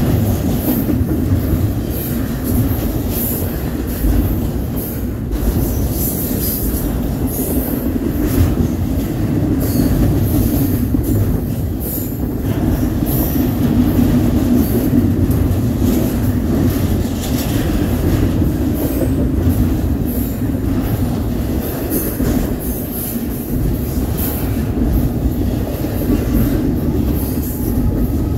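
Union Pacific double-stack container freight train rolling past close by at speed: a steady heavy rumble of steel wheels on rail, with brief high-pitched metallic squeals coming and going.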